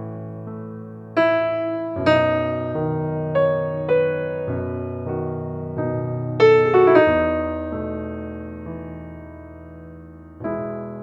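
Background music: slow piano-like keyboard notes and chords, each struck and left to ring and fade, with a cluster of notes in the middle and a new chord near the end.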